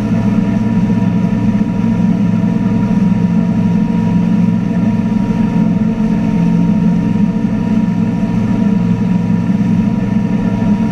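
2015 MasterCraft NXT wake boat's inboard engine running steadily at wake-surfing speed: a constant low drone with a faint steady whine above it, together with the rush of the wake. It is heard close up from the stern.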